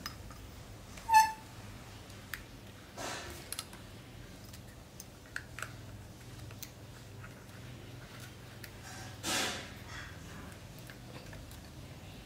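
Small plastic clicks and fiddling of hands working a receiver's servo-lead connector onto a drone flight controller's pins, with one short, sharp pitched click about a second in that is the loudest sound. Two soft breathy whooshes come near 3 s and again near 9 s.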